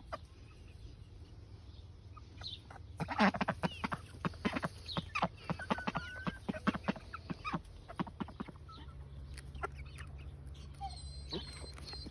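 Chickens clucking in a quick run of short calls, mostly between about three and seven seconds in, as they take treats from a hand.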